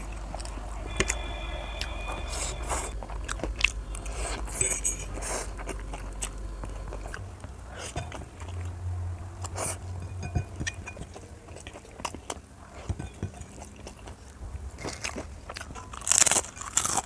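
Crunchy food being bitten and chewed close to the microphone: a run of sharp crunches and chewing, with the loudest crunches a second before the end.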